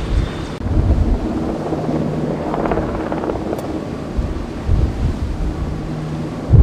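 Wind buffeting the microphone in irregular gusts on a ship's open deck at sea, with a low steady hum underneath.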